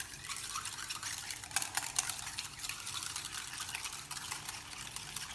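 Cream being beaten by hand with a spring coil whisk in a bowl: fast, wet swishing with a rapid patter of clicks as the wire hits the bowl.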